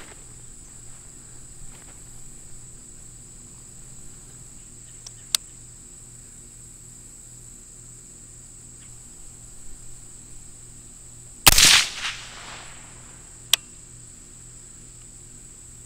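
One shot from a suppressed AR-15 in .223/5.56 about eleven and a half seconds in, with a short echo after it. Two brief sharp clicks sound about five seconds in and shortly after the shot. A steady high-pitched insect drone runs underneath.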